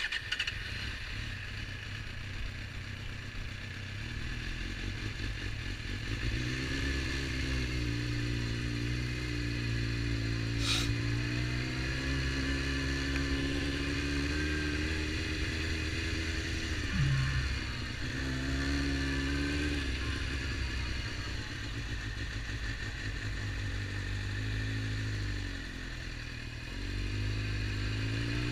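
Suzuki GSX-R750's inline-four engine at low revs as the motorcycle rides slowly, its pitch rising and falling several times with throttle and gear changes. A single sharp click about eleven seconds in.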